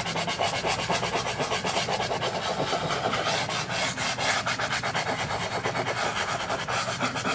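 Soft pastel stick scraping over sanded pastel paper in quick, even back-and-forth strokes, a steady rasping of several strokes a second.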